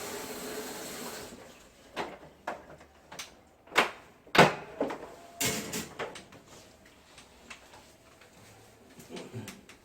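A steady hiss that stops about a second in, then a string of separate sharp knocks and clicks, the loudest near the middle, with quieter clicks toward the end.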